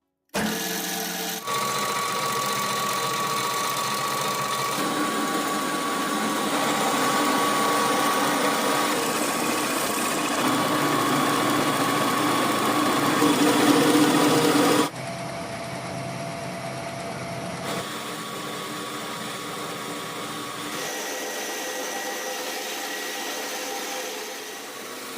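Meadows stone mill running as it grinds corn into flour: a steady mechanical whir with a hum. It is loudest in the first half and drops suddenly in level about fifteen seconds in, with further abrupt shifts in tone.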